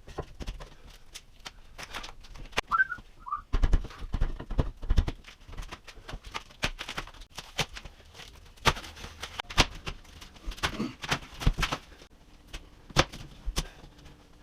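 Irregular clicks, taps and knocks from hand work with tools and materials. About three seconds in come two or three short, high rising chirps, like a brief whistle or squeak.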